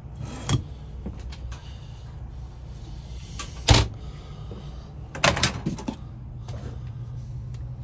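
Handling noises in a motorhome galley, over a steady low hum: a sharp knock about halfway through, then a quick cluster of clicks and knocks as the convection microwave's door is pulled open.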